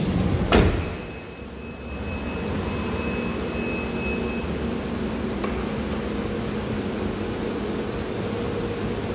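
One loud slam about half a second in, a Hyundai H350 van's sliding side door being shut, followed by a steady low mechanical hum with a faint high whine for the next few seconds.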